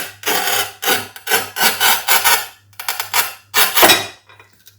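Manual tile cutter's scoring wheel scraping across a ceramic floor tile in about seven short strokes, scoring the glaze before the tile is snapped.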